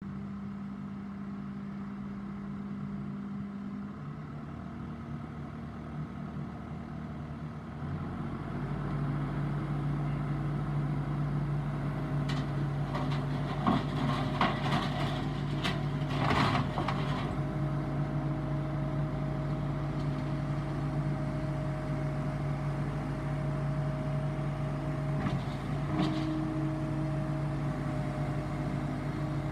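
Case TR320 skid steer's diesel engine running steadily; about eight seconds in its note shifts and it gets louder, and a few metallic clanks and rattles come over it around the middle.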